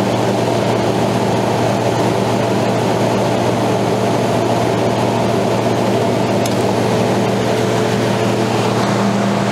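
Dolphin Appliances soft-serve ice cream machine running with a steady low hum while ice cream is drawn from its dispensing nozzle.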